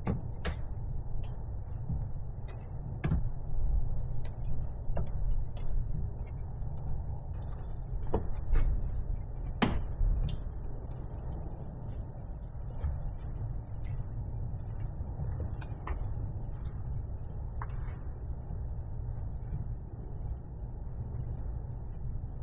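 Microfiber cloth rubbing over a car's painted bumper as wax is buffed off, with scattered light clicks and knocks over a steady low rumble; the sharpest knocks come a little before the middle.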